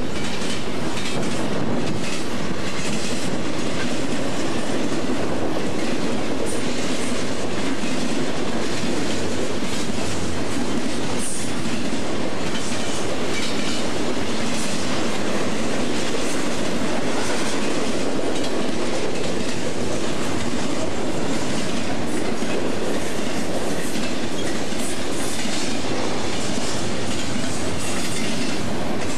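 Union Pacific double-stack container train rolling past: a steady rumble of steel wheels on rail with a continuous clatter of wheel clicks.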